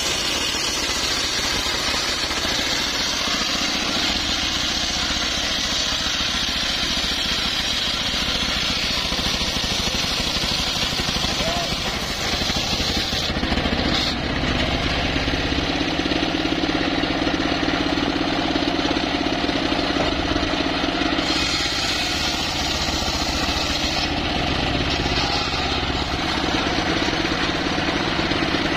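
Homemade table circular sawmill running continuously, its engine running steadily while the large blade rips a mahogany log lengthwise into boards.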